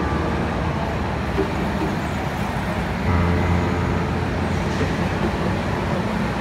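Go-karts running on an indoor kart track: a steady mechanical din with a low hum that grows stronger about three seconds in.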